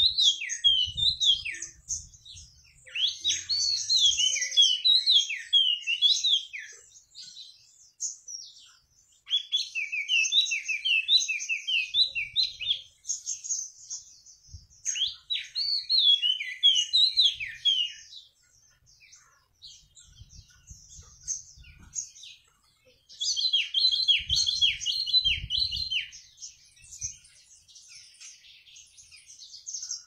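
Caged wambi mini songbird singing in bouts of rapid, high chirping notes. The phrases run several seconds each, with pauses between them, and the song turns to softer twittering near the end.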